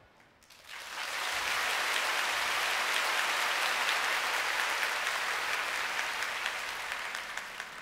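Concert audience applauding, starting about half a second in and swelling quickly into steady clapping.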